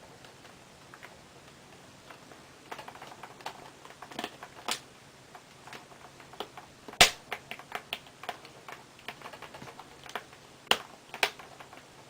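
Small flathead screwdriver prying at the seam of a laptop's plastic screen bezel: irregular light clicks and scrapes of metal on plastic, with a sharp snap about seven seconds in and two more near the end as the bezel's plastic clips give.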